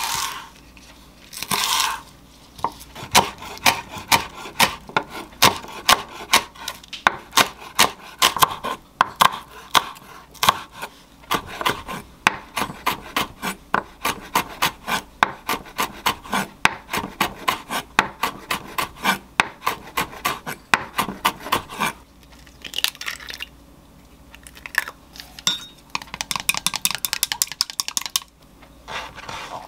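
Kitchen knife chopping greens and pickled radish on a wooden cutting board, in steady strokes about three a second for some twenty seconds. Near the end, chopsticks quickly whisk an egg in a glass mug, with a fast clicking against the glass.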